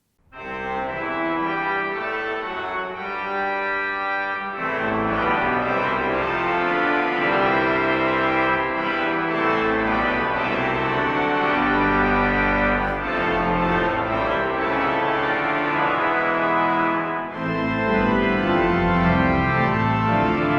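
Organ starting up and playing sustained chords. Deep bass notes join about four and a half seconds in.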